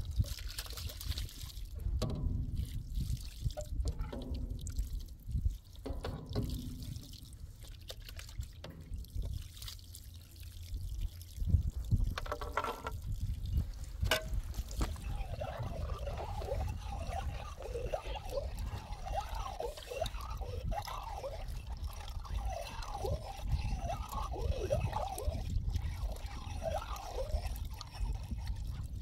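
Water running from a tank tap and splashing as glass tea glasses and a plastic tray are rinsed by hand. In the second half the water gurgles and splashes into the glasses.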